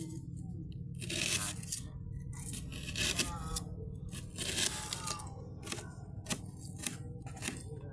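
Knife slicing red onion on a plastic plate: scraping cuts through the onion, then a run of quick, sharp taps of the blade against the plate in the second half.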